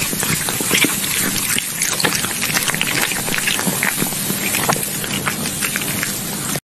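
Meat sizzling on a charcoal grill: a steady dense hiss dotted with many small crackling pops.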